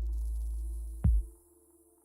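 Electronic background music with deep bass hits: a held low bass note, then another hit about a second in, fading out about halfway through.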